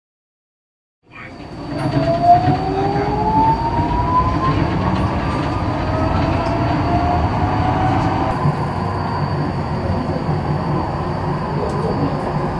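Incheon Line 2 light-metro train's traction drive starting up about a second in. Its motor whine rises in pitch as the train gathers speed, and a second rising whine follows, over the steady rumble of the wheels on the rails and a thin high tone.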